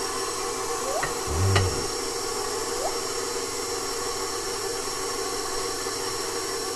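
Electric stand mixer motor running steadily while flour is added to the bowl, with a brief low thump about a second and a half in.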